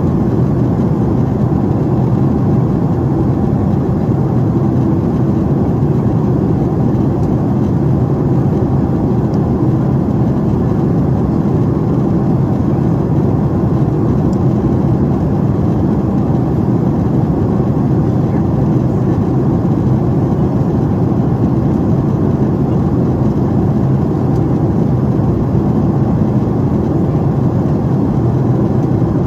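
Steady low-pitched cabin noise inside a Boeing 767-400 in flight: engine and airflow noise with no change.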